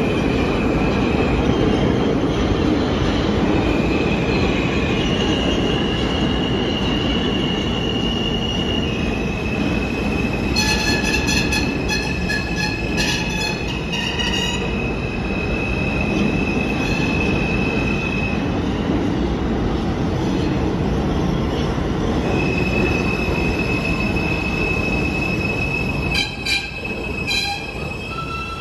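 New York City subway train moving through the station: a heavy steady rumble of the cars with long high-pitched wheel squeal. A run of rapid clicks from wheels over rail joints comes about a third of the way in and again near the end.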